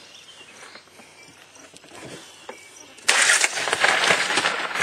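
Quiet outdoor background, then about three seconds in a sudden loud rustling and knocking of the camera being handled and moved against the boat.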